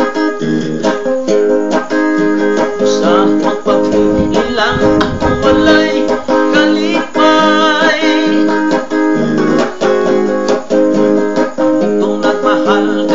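Electric guitar playing an instrumental break between sung verses: a picked melody of plucked notes with bent, sliding pitches over held chords.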